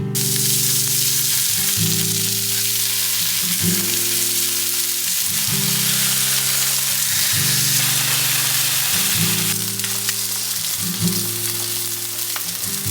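Food frying in a pan, a steady loud sizzle that starts and cuts off abruptly, over background music of repeating guitar chords.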